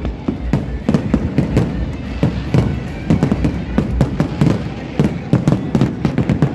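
Aerial fireworks bursting in a rapid, irregular volley of cracks and bangs, several a second, with low booms underneath.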